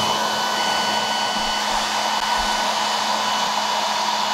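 Handheld hair dryer running steadily: an even rush of air over a steady low hum.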